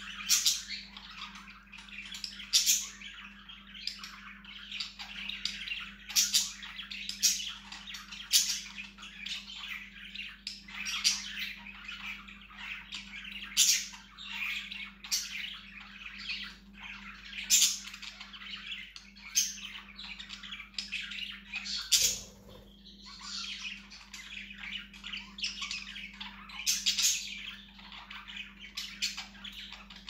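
Budgerigar chattering and warbling without a break, with sharp, loud chirps every second or two; the chatter stops briefly about two-thirds of the way through, then resumes.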